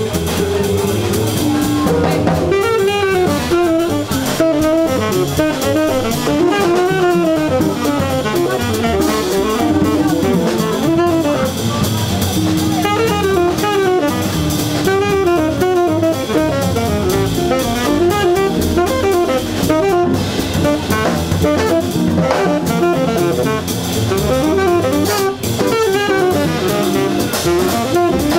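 Small jazz group playing live: a saxophone plays fast, winding melodic runs over drum kit and double bass.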